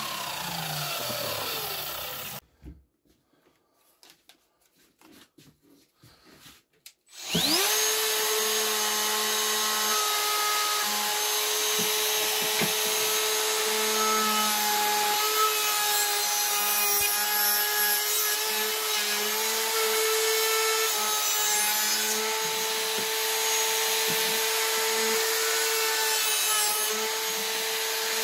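A mitre saw blade spinning down with a falling whine. After a few seconds of quiet, a trim router starts with a quick rising whine and runs steadily at a constant pitch as it trims the edge of a small piece of wood.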